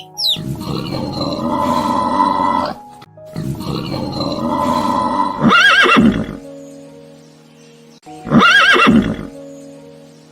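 Horse neighing: two long rough calls, each ending in a short shrill whinny with a shaking pitch, over steady background music.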